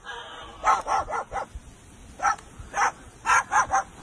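Sulphur-crested cockatoo imitating a dog's bark: about nine short, loud barks in quick clusters of two or three.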